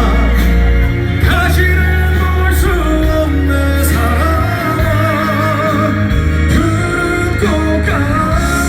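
Live slow pop ballad: a male singer holds long, wavering notes over band accompaniment with a steady bass.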